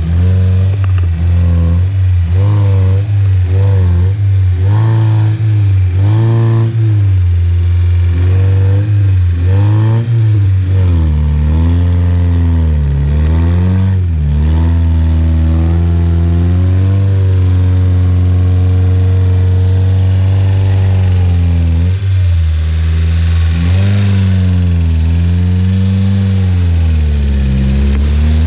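Off-road vehicle's engine revving under load, its pitch rising and falling about once a second for the first ten seconds, then in slower, longer swells.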